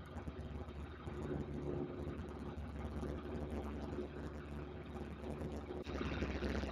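Single-engine light aircraft's piston engine and propeller running steadily in flight, heard inside the cabin along with the rush of air. The air noise grows louder about six seconds in.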